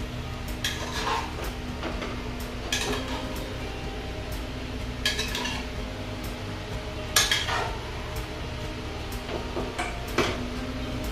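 Metal spoon scraping and clinking against the inside of an aluminium pressure cooker as thick chicken curry is stirred, in short irregular strokes a few seconds apart, over a steady low hum.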